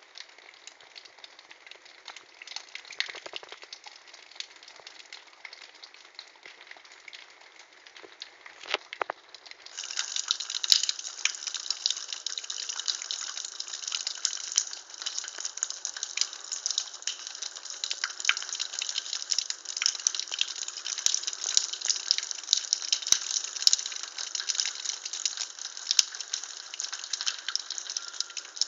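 Thaw water running and splashing, a steady hiss with scattered small ticks that grows clearly louder about ten seconds in.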